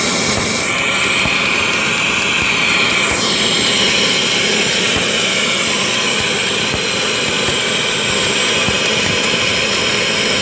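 Submerged arc welding rig running on a stainless steel seam: a steady, loud mechanical hiss with a constant high whine through it.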